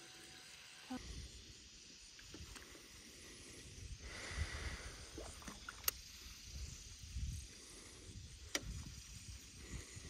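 Faint outdoor noise on a small fishing boat: a low, uneven rumble of wind on the microphone and water, with three sharp clicks, the loudest about six seconds in.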